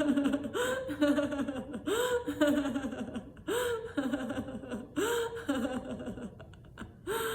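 A woman laughing in a long string of 'ha-ha' bouts with gasping breaths, deliberate laughter from a laughter-yoga exercise, trailing off near the end.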